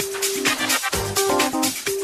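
Electronic dance music from a DJ mix: a techno track with rapid, even hi-hat ticks and a repeating mid-pitched synth riff, with one deep kick drum about halfway through.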